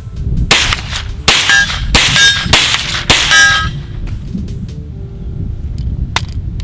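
Hi-Point 995 9mm carbine firing five shots in quick succession, roughly one every two-thirds of a second, each shot followed by a metallic ringing. A few fainter clicks follow near the end.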